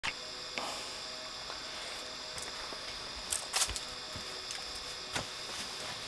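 A few scattered knocks and bumps, the loudest pair about three and a half seconds in, as someone walks across a wooden deck and sits down in a folding camp chair. Under them is a faint steady high-pitched background hum.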